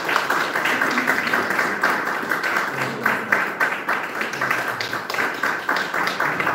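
A small group of people applauding, a dense patter of hand claps.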